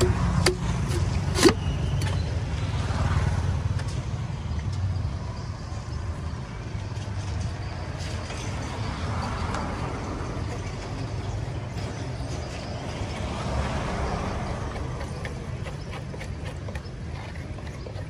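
Steady low rumble of street traffic, swelling and fading as vehicles pass, with two sharp knocks in the first two seconds as a cleaver chops into a green coconut.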